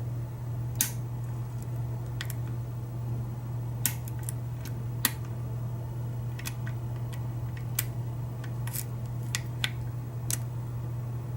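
Sharp, irregular clicks of a lock pick and tension tool working a Kwikset SmartKey deadbolt, about a dozen over several seconds, over a steady low hum.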